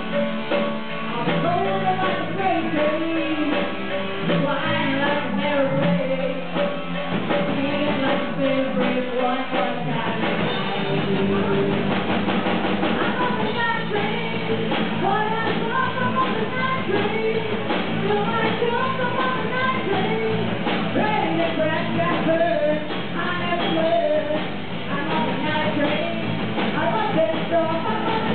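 Live rock band playing: a woman singing into a microphone over electric bass, guitar and a drum kit.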